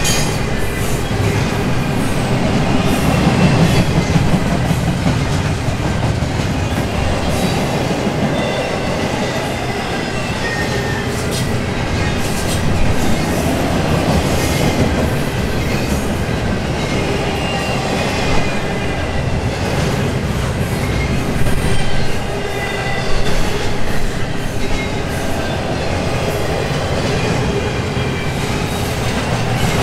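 Double-stack intermodal container cars rolling past: a steady rumble of steel wheels on rail, with faint high-pitched squealing tones and scattered clicks and clanks from the wheels and cars.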